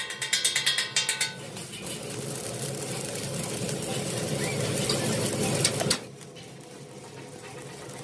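A steel chipping hammer tapping quickly on a weld seam of a steel tank, about five ringing strokes a second, for the first second or so. Then a stick-welding arc crackles and hisses steadily as the electrode burns, turning quieter about six seconds in.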